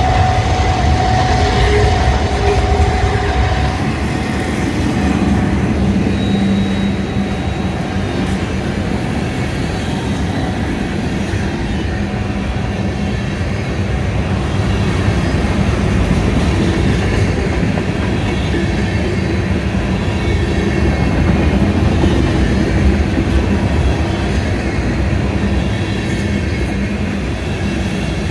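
Long freight train rolling past at close range: a continuous rumble and clatter of steel wheels on the rails as covered hoppers and tank cars go by, with a few thin squealing tones from the wheels.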